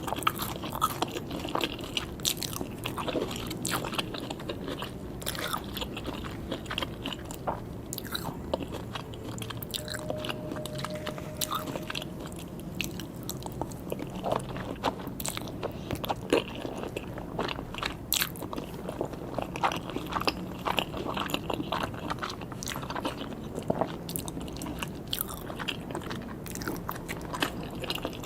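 A person chewing and biting sushi and sashimi, with many short clicks and smacks scattered throughout.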